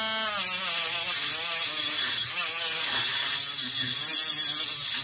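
Dremel Stylo rotary tool with a small flap sanding disc sanding hard wood. About a third of a second in, the disc bites and the motor's whine drops, then wavers up and down under load, with the flaps rasping on the wood. The tool is bogging down on the hard wood.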